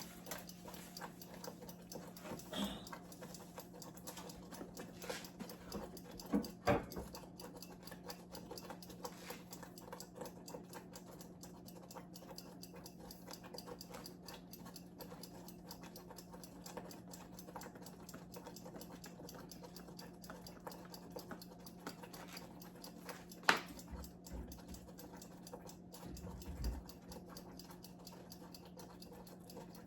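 Faint kitchen sounds at the stove: a steady low appliance hum under light, continuous ticking and pattering, with a few knocks of cookware, the loudest sharp one about two-thirds of the way through.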